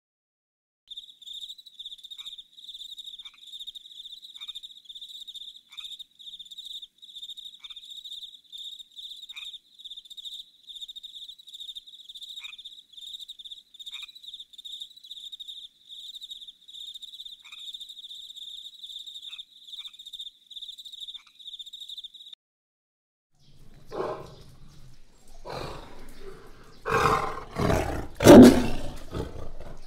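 A tiger growling and roaring in several deep, loud calls over the last six seconds. Before that, for about twenty seconds, a steady high-pitched chirring trill with faint regular ticks runs on its own.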